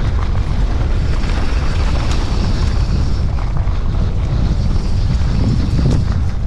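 Wind buffeting an action camera's microphone over the steady rumble of a downhill mountain bike's tyres rolling fast over a dry dirt trail.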